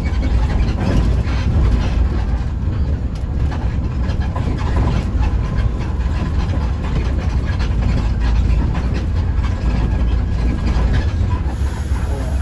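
Mercedes-Benz OH1526 coach under way, heard from inside: a steady low engine drone and road noise, with light rattling from the body.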